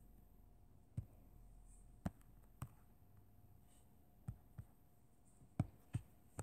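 Light taps on a tablet touchscreen while drawing and zooming, about eight short clicks at uneven spacing over faint room hiss.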